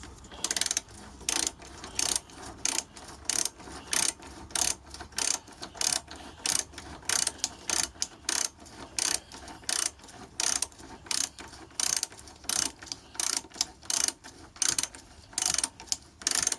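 Hand ratchet and socket clicking in a steady run of strokes, about two to three a second, running bolts in loosely rather than tightening them.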